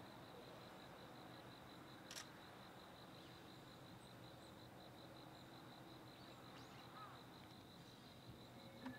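Faint insect trilling: a steady, evenly pulsing high chirr, with one sharp click about two seconds in.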